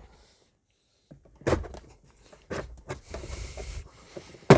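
Plastic knocks and clicks of a car glove box being handled while its side stop tabs are pressed in to release it. There are a few separate knocks, a short rustle or scrape about three seconds in, and a sharp, loud click near the end.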